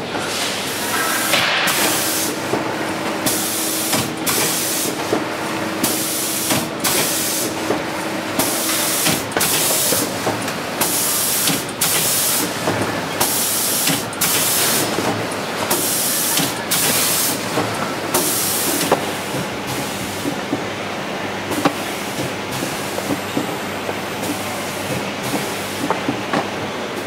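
Automatic L-sealer shrink-wrapping machine running, with a short hiss repeating about once a second over the clatter of the mechanism. The hissing stops about two-thirds of the way through, leaving only the steady hum and rattle of the machine and its conveyor.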